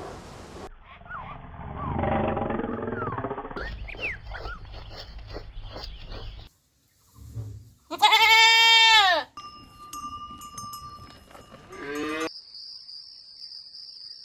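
Goats bleating in a string of short separate clips, the loudest a single long bleat just past the middle that rises and falls in pitch. A steady high thin tone follows near the end.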